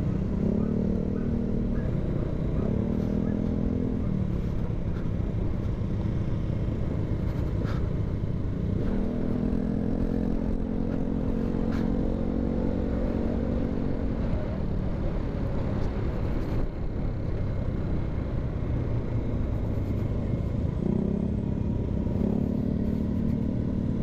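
Honda TMX 125 motorcycle engine running on the road, with heavy wind rumble from riding. The engine's steady note rises out of the wind in stretches, the longest in the middle, and sinks back between them.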